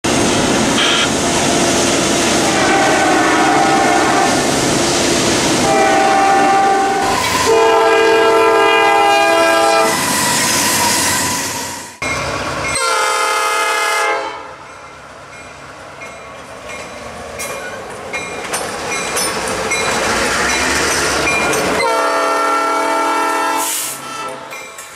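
Norfolk Southern diesel freight trains passing, with a multi-note locomotive horn sounded several times over loud wheel and rail noise from a close-passing double-stack container train, including one long blast about halfway through the first part. After a sudden change about halfway in, a short horn blast, then quieter rolling noise of tank cars going by, and another horn blast near the end.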